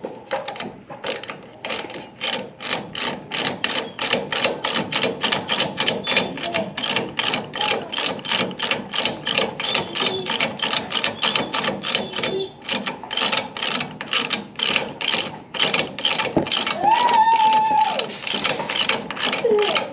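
Hand ratchet wrench clicking steadily, about four clicks a second, as a fastener is turned. A short steady tone sounds about three-quarters of the way through.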